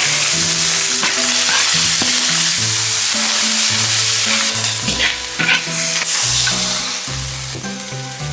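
Food sizzling loudly in a hot pan as it is stir-fried, with a few sharp clicks of the utensil near the middle; the sizzle eases slightly toward the end. Background music with a melodic bass line plays throughout.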